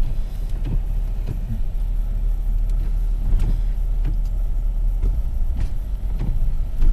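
Car driving on a winter road, heard from inside the cabin: a steady low road and engine rumble with occasional light knocks.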